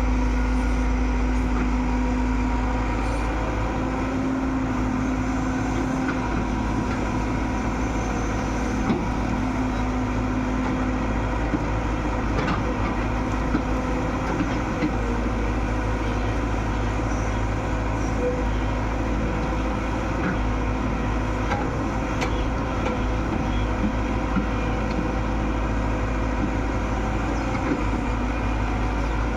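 Excavator's diesel engine running steadily, with a few faint knocks here and there.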